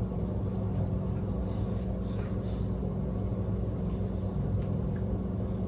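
Steady low hum of a room's background, with a few faint clicks.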